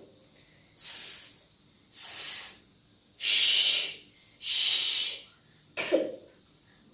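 A child saying unvoiced consonant sounds one at a time: four breathy hisses of half a second to a second each, the first two fainter than the next two, then a short, sharper consonant burst near the end.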